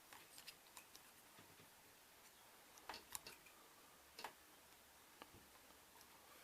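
Faint, scattered clicks and taps of plastic K'NEX parts being handled, about half a dozen in all, the most distinct a pair around three seconds in and one just after four seconds.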